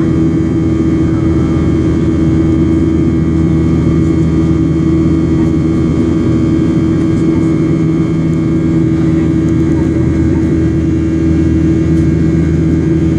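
Boeing 737 CFM56 turbofan engines droning steadily during the climb, heard inside the cabin, with a steady hum tone over the rushing noise.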